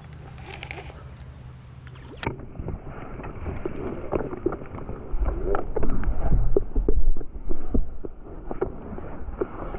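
Handling noise on the camera's microphone: irregular knocks, rubs and low rumble as hands grip and cover the camera, getting louder through the clip. The first two seconds hold only a faint low steady hum before it cuts abruptly.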